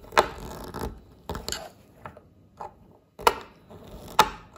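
Flat-blade screwdriver tightening the screw terminals of a lampholder: a few sharp clicks, with faint scraping of the blade in the screw slots between them.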